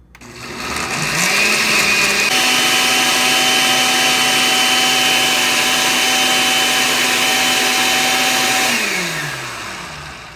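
Glass-jar countertop blender pureeing frozen and fresh mango chunks with water. The motor spins up with a rising pitch, steps up to a higher steady pitch about two seconds in and runs steadily, then winds down with a falling pitch near the end.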